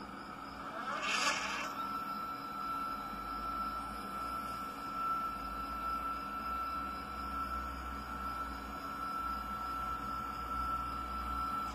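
Motorised equatorial telescope mount driven through EQMOD, slewing to its park position. A short burst of noise about a second in, then a steady high whine from the stepper motors.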